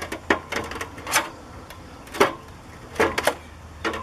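A metal drywall knife scraping and clicking in short, irregular strokes, about eight in four seconds, as it cuts silicone bathtub caulk away from around a window air conditioner's aluminum frame.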